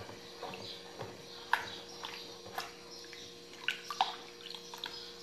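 Wooden spoon stirring liquid dish detergent in a bowl, with soft sloshing and scattered light clicks of the spoon against the bowl as salt is mixed in to thicken it. A faint steady hum runs underneath.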